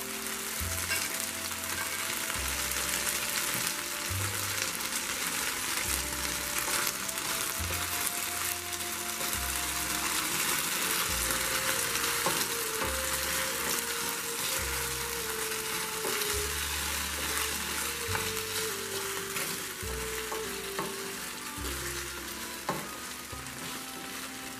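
Chicken and peppers in sweet and sour sauce sizzling in a frying pan while being stirred with a spatula, as the sauce cooks down and thickens. Soft background music plays underneath.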